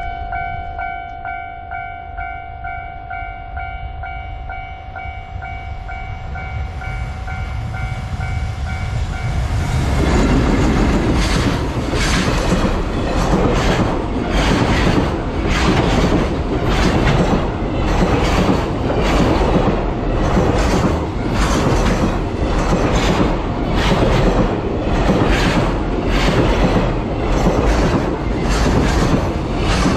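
A Japanese level crossing's electronic warning bell ringing in steady, even pulses. About ten seconds in, a long freight train hauled by an EF210 electric locomotive passes close by, its wagon wheels clacking rhythmically over the rail joints.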